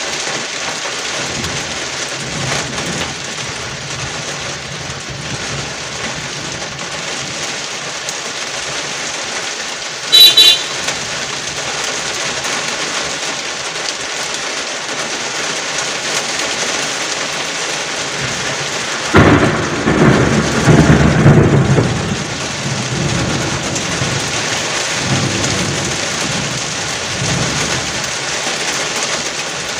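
Heavy rain falling steadily on the street and on the window glass. A short car-horn beep sounds about a third of the way in, and a louder low rumble lasts about three seconds around two-thirds of the way through.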